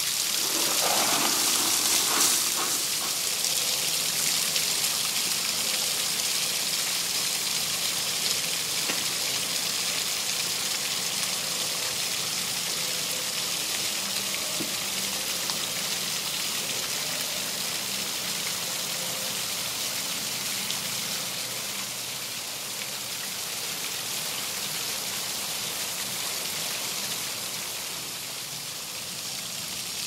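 Water falling down a backyard rock waterfall and splashing from the pond's small fountain, a steady even splashing hiss, slightly louder in the first few seconds.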